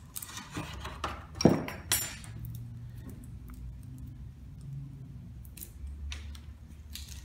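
Light clicks and rattles from handling a soldering iron's coiled power cord and plug as it is unwound, the loudest about a second and a half in, over a low steady hum.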